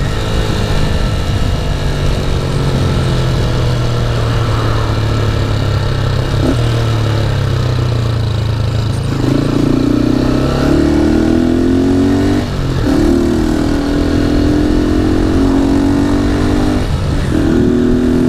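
Honda CG 150 Titan's single-cylinder four-stroke engine running through a GeMoto aftermarket exhaust under way, its note rising and then breaking briefly three times as with gear changes. Strong wind noise roars inside the helmet.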